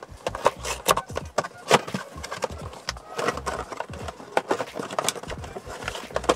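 Cardboard packaging being opened by hand: a run of irregular crackles, scrapes and taps as the box flap is worked open and the inner tray slid out.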